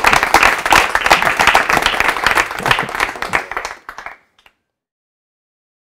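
A small crowd applauding, many hands clapping quickly and densely; the applause fades out about four seconds in.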